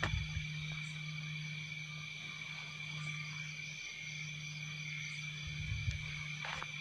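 Steady night chorus of insects and frogs: an even high trilling over a low continuous drone. A brief low rumble comes at the start and again about six seconds in.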